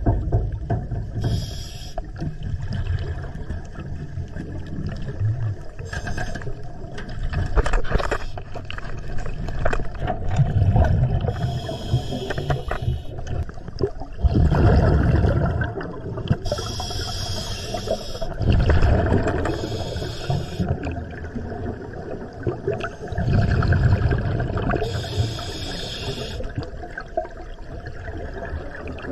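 Scuba diver breathing through a regulator underwater: hissing inhalations alternating with low rumbling bursts of exhaled bubbles, repeating every few seconds.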